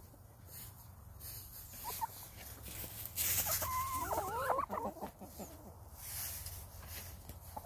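Chickens clucking while foraging. About three seconds in there is a sudden rustle of flapping wings, then a flurry of several overlapping squawks and clucks lasting about a second and a half.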